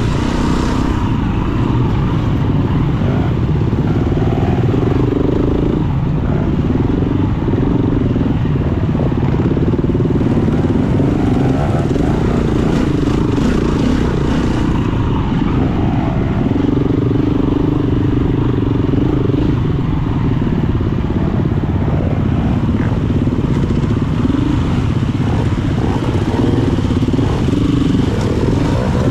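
KTM EXC-F 350 single-cylinder four-stroke enduro engine running continuously, its pitch rising and falling with the throttle.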